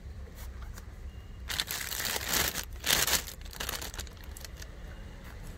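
Clear plastic bag of fried tapioca chips crinkling as it is handled, in a run of irregular rustles from about a second and a half in to nearly four seconds.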